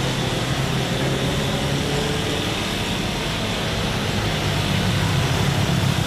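Jet airliner engines running: a steady rumble with a hiss over it, no change in level.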